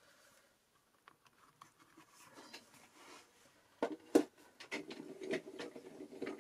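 Clear plastic cutting plates are handled with faint rustles, then two sharp plastic clicks about four seconds in as the plate-and-die sandwich is set down. A steady low hum with small clicks follows: the Gemini Midi electric die-cutting machine starting to feed the sandwich through.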